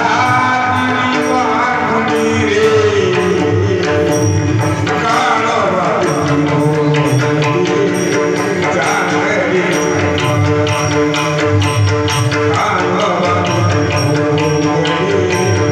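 Devotional Marathi kirtan music: a man singing in long, bending melodic phrases over sustained instrumental tones, with drum and jingling hand percussion keeping a steady beat.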